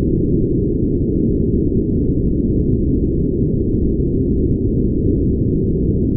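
Pure brown noise: a steady, deep rushing sound with nothing high in it.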